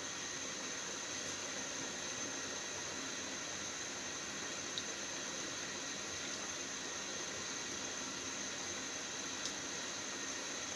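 Hot oil in a frying pan sizzling with a steady hiss as potato pinwheel samosas are slipped in one at a time, with a faint tick about five seconds in and again near the end as each piece goes in.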